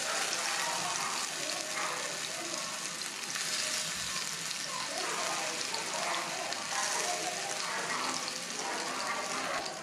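Minced mutton kabab patties shallow-frying in hot oil in a pan, sizzling steadily as more raw patties are laid in.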